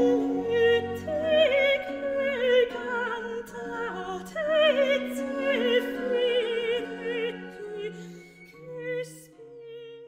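Classical music: a high melody with strong vibrato over sustained lower notes. It thins out and fades near the end.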